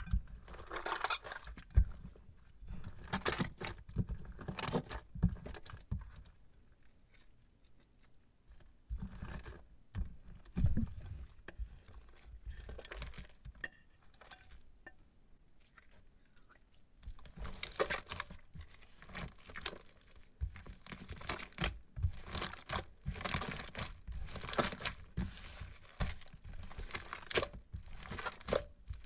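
Crunchy slime being kneaded and squeezed by hand, giving irregular crackling and crinkling, sparser through the middle and denser in the last third.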